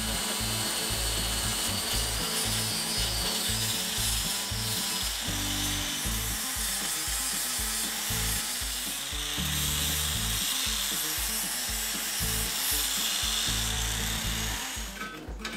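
Power tool cutting steel: a continuous harsh whine with a slightly wavering pitch that stops just before the end, over background music.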